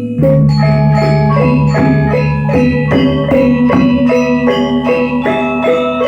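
Balinese gamelan angklung playing: bronze metallophones struck in a quick run of ringing notes, about four or five a second, over a sustained low tone from a deeper instrument.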